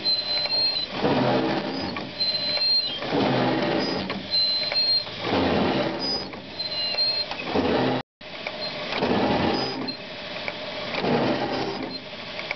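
1977 Chevrolet truck's electric windshield wiper motor running, its linkage going through a repeating mechanical cycle about every two seconds. In the first half each cycle carries a short high squeak.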